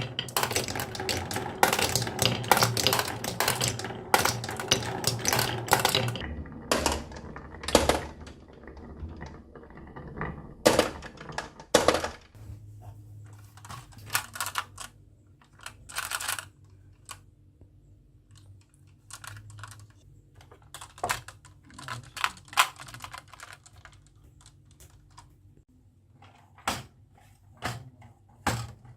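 Marbles clattering down a wooden marble run: dense rapid clicking for about six seconds, then separate clicks, then a quieter stretch of steady low hum with scattered clicks, and a few sharp clicks near the end.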